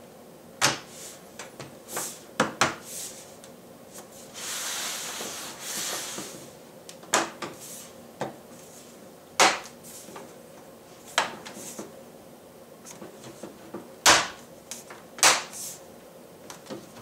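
Plastic bottom cover of an HP 17.3-inch laptop being pressed back onto the chassis: about ten sharp, irregularly spaced clicks as its clips snap into place around the edges. A couple of seconds of scraping, about four seconds in, as the panel is shifted into position.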